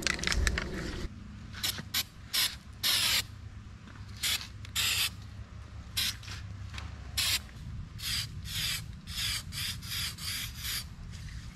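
Aerosol spray can of undercoat paint being sprayed in many short hissing bursts, some about half a second long, as bare and flaking spots on a steel trailer frame are touched up.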